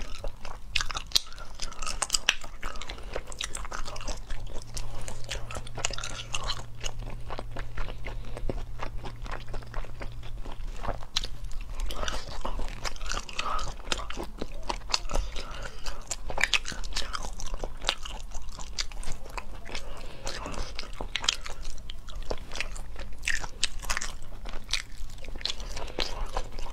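Close-miked eating of snails in chili oil: wet chewing and biting, with many short sharp clicks and smacks throughout as the meat is pulled from the shells and chewed.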